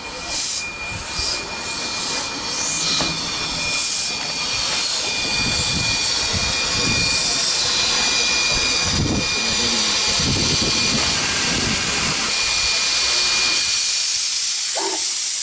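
Steam locomotive at a heritage railway: a short run of rhythmic puffs in the first few seconds, then a steady, loud hiss of escaping steam with a thin high tone in it.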